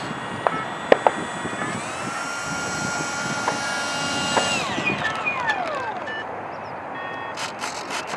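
Stock 70mm electric ducted fan of a Parkzone Habu RC jet whining as it taxis on asphalt: the whine rises in pitch about two seconds in, holds steady, then winds down with a falling pitch as the throttle is cut. A couple of sharp knocks come about a second in, and scattered clicks near the end.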